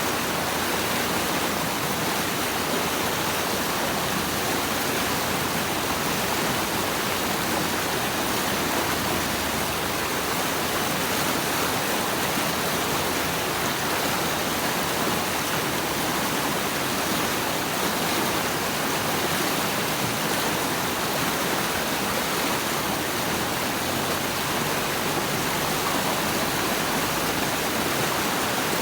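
Rushing water of a stream or waterfall, a steady, unchanging wash of noise.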